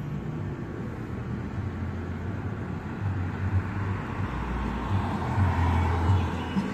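A car passing by on the street, its noise swelling from about four seconds in and loudest near six seconds, over a steady low hum.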